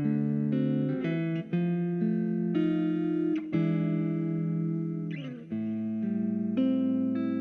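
Background music: guitar chords played in a steady run of changes, with a slide across the strings about five seconds in.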